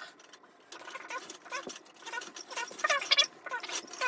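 Toilet auger being pushed and cranked into a toilet: its coiled cable clicks and rattles, with a few short squeaks, the loudest about three seconds in.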